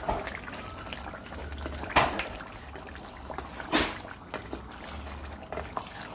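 Wooden spoon stirring thick beef curry sauce in a stainless steel pot, the sauce sloshing wetly. The spoon knocks against the pot twice, sharply, about two seconds and nearly four seconds in, the first knock the louder.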